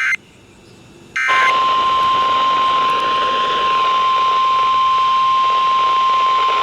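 Emergency Alert System SAME data bursts: the end of one short warbling burst at the start and another about a second in. Then a steady single-pitch Weather Radio alert tone of about 1050 Hz sounds over radio static. This is the attention signal that opens a new emergency alert.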